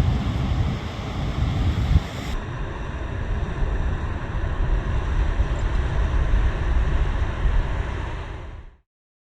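Strong wind buffeting a phone microphone over the wash of breaking surf, a heavy rumbling noise. The sound fades out and stops shortly before the end.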